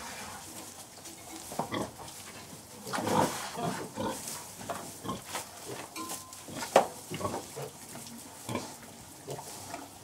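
Sows and piglets in a farrowing pen: irregular grunts and short squeals, loudest about three seconds in and again near seven seconds.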